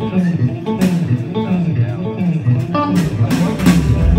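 Live blues band: electric guitar played over a moving bass line and drums, with cymbal and snare hits cutting through.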